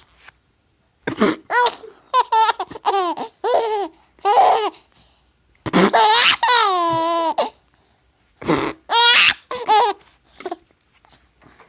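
Baby laughing in a string of short, high-pitched bursts, with one long drawn-out squeal of laughter about halfway through.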